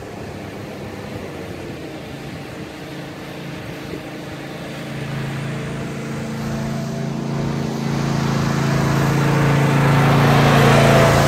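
John Deere Z335E zero-turn riding mower mowing, its engine running at a steady pitch and getting steadily louder as it drives up close, loudest near the end.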